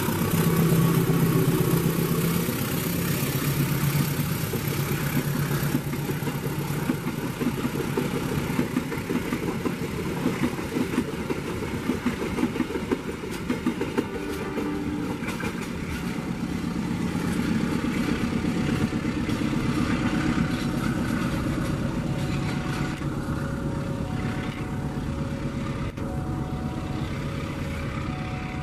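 Passenger train hauled by a diesel locomotive passing close by: the locomotive's diesel engine runs with a steady low drone, then the coaches roll past with wheels clicking over the rail joints. A short repeating tone comes in near the end.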